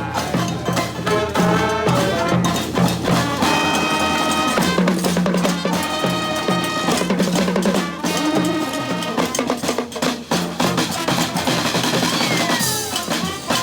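Brass band playing: horns in held chords over a repeating low bass line, with snare and bass drum keeping the beat, and a falling slide in pitch near the end.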